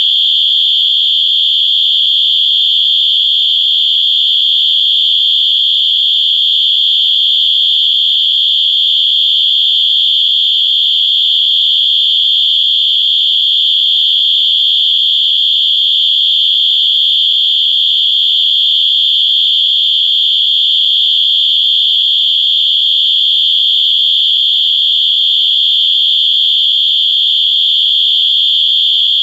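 Electronic whistle sounding one continuous, loud, shrill high-pitched tone, steady without breaks or changes in pitch.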